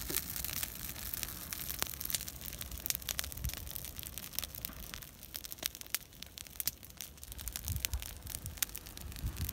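Irregular crackling and rustling: many small sharp clicks, with a low rumble underneath.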